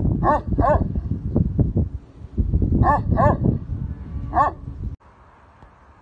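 Dog barking: five short barks, two near the start, two around three seconds in and one more a little later, over a loud low rumble. The sound cuts off abruptly about five seconds in.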